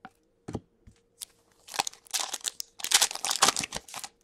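A foil hockey-card pack wrapper torn open and crinkled by hand, in two crackling bursts over the second half. Before it come a couple of short clicks as cards are handled.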